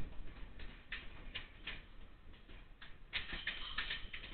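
Irregular metallic clicks and clacks of a slow-moving train's wheels passing over rail joints and switches, with a cluster of quick clacks past the three-second mark.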